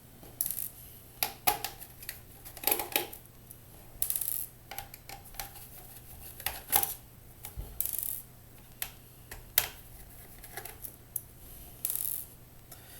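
Screwdriver unscrewing small screws from a laptop's chassis under the removed keyboard: irregular small metallic clicks and ticks, with a few brief scrapes.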